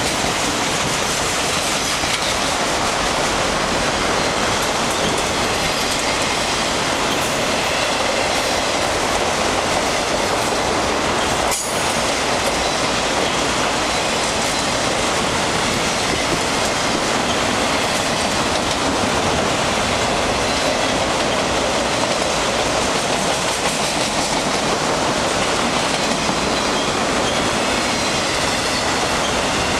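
Freight cars of a long Canadian Pacific train, autoracks and mixed freight, rolling past steadily with a continuous wheel-on-rail rumble and clatter. A single sharp click sounds about twelve seconds in.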